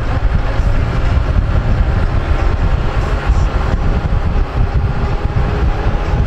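Steady low rumble and road noise of a moving vehicle, heard from on board.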